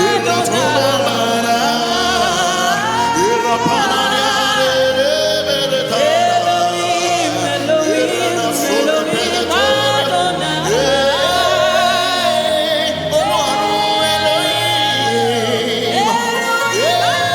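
Gospel worship music: a voice sings sliding, wordless ad-lib runs and held notes over sustained low chords that change every few seconds.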